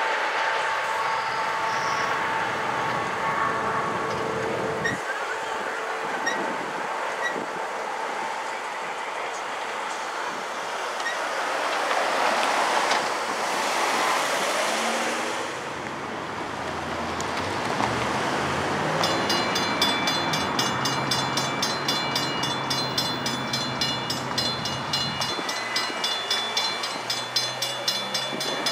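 NJ Transit passenger train rolling away from the crossing, its rail noise fading. From about two-thirds of the way in, a mechanical railroad crossing bell rings in rapid, even strokes while the gates are still down and as they begin to rise.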